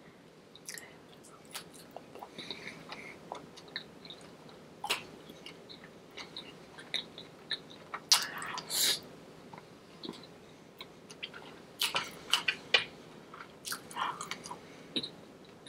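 Close-miked chewing and biting as a person eats: irregular small mouth clicks, with louder bites about halfway through and again near the end.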